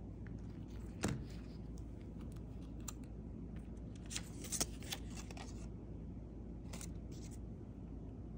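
Handling noise of an iPhone being picked up off a table and tapped: one sharp knock about a second in, a cluster of small clicks a little past the middle, and a few more clicks near the end, over a steady low hum.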